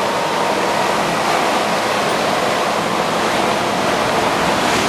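Steady loud rush of churned water from a motor cruiser's wake and spray as the boat runs at speed.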